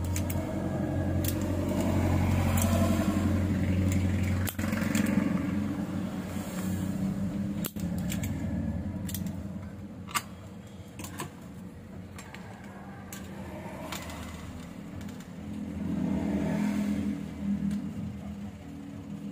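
Low engine hum of motor vehicles going by, louder in the first few seconds and again near the end. Over it come scattered small clicks of soldering work, and one sharp snap about ten seconds in from a spring-loaded desoldering pump.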